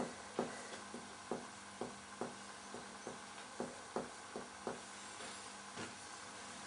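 Finger-on-finger percussion of the chest: about a dozen soft, short taps, often two in quick succession. The examiner is working from the apex beat toward the heart to find the left border of relative cardiac dullness.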